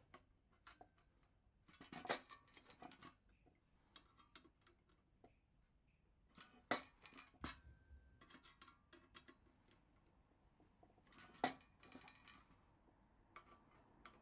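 Faint, scattered clicks and taps of metal parts as a Coleman 508A Sportster gasoline stove is handled and a screwdriver is worked at its burner bracket, with a few sharper clicks standing out.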